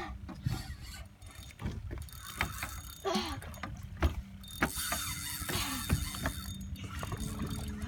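Fishing reel ratcheting and clicking in irregular runs as line is worked against a hooked bull redfish, over a low steady hum.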